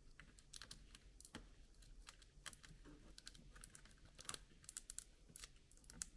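Faint, irregular small clicks and taps from hands working on a laptop's internal parts and cable connectors during disassembly.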